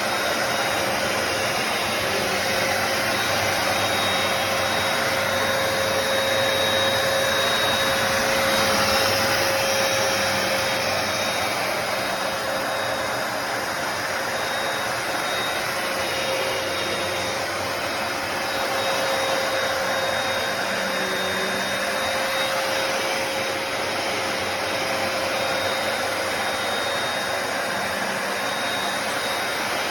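Hoover PowerDash Pet+ compact carpet cleaner running steadily, its suction motor giving an even rushing noise with a steady whine over it.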